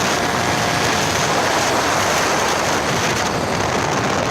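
Steady, loud rushing noise of wind buffeting the microphone, with no clear engine note standing out.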